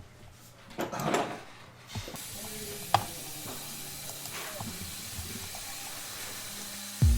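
A brief rustling handling noise, then a steady hiss, like a spray or air jet, with one sharp click about three seconds in. Music begins at the very end.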